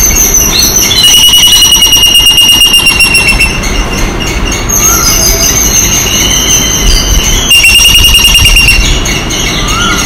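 Outdoor nature ambience: a loud, high, fast-pulsing buzz swells in two long spells, about a second in and again past the middle, with a weaker stretch between and a few short bird chirps.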